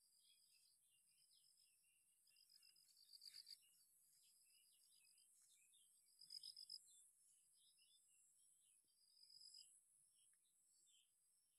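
Faint birdsong: scattered high chirps, with three louder runs of quick repeated notes spread through, over a steady high hiss.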